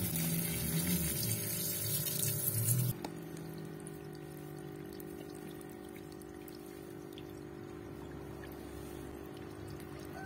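Electronic music that cuts off abruptly about three seconds in, leaving the steady hiss and splash of water spraying from a split in a leaking PVC mains water pipe into a muddy puddle.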